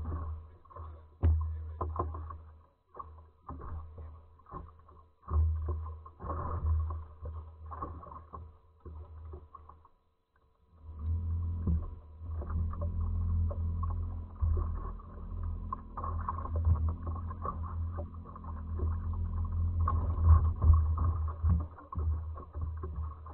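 A low rumble on the microphone of a camera fixed on a fishing boat; it comes and goes and drops out briefly near the middle. Over it are scattered knocks and clicks as a landing net, a walleye and an A-rig lure are handled on the deck.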